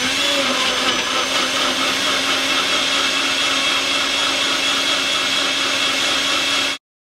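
NutriBullet personal blender running at full speed, blending a green smoothie into a smooth liquid: a steady, even motor whine that cuts off suddenly near the end.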